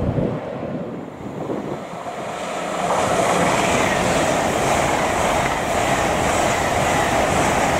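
Hitachi Class 801 Azuma electric multiple unit running past on the main line, a steady rush of wheels on rails that swells about three seconds in and holds as the carriages go by.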